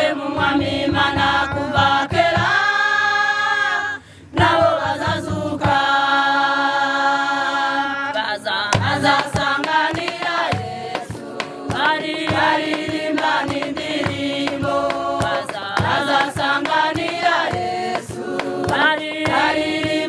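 Women's choir singing a hymn together, keeping time with hand claps. The singing breaks off briefly about four seconds in, and the claps come steadily through the second half.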